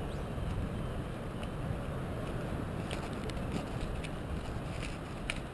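Steady low wind rumble on the camera microphone, with a few light clicks in the last couple of seconds.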